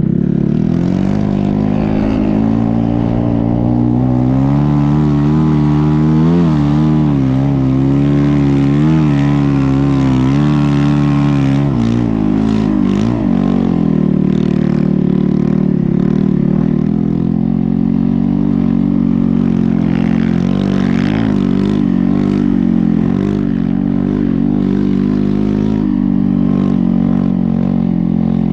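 Snow bike's dirt-bike engine running under load, its pitch rising and falling quickly with the throttle for several seconds, dropping about twelve seconds in, then holding steadier with smaller surges.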